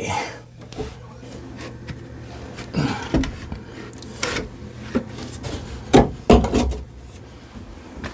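Pieces of pressure-treated lumber being handled and fitted into a cut-out at the base of a wall: scattered wooden knocks and scraping, with the loudest knocks about six seconds in.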